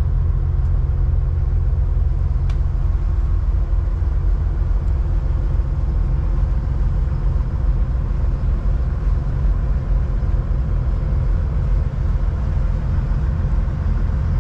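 Twin Volvo Penta engines of a Sealine F43 motor cruiser running steadily under way, heard inside the helm cabin as a low, even drone.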